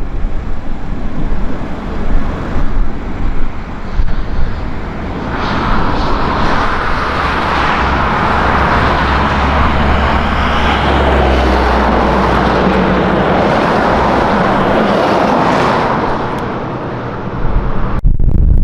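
Wind buffeting the microphone in uneven gusts, giving way about five seconds in to a steady, even rushing noise with a low rumble, which stops about sixteen seconds in; gusty wind noise comes back near the end.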